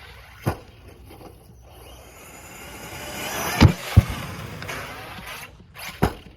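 Traxxas Sledge RC monster truck jumping and landing: a sharp bang about half a second in, then the motor and tyres building up over a couple of seconds, two loud bangs of the landing close together about four seconds in, and another bang near the end.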